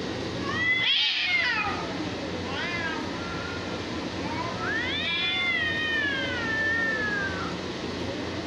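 Two cats yowling at each other in a territorial standoff: a wavering wail about half a second in, a short call near three seconds, then a long drawn-out yowl that slowly falls in pitch, the warning calls that come before a cat fight.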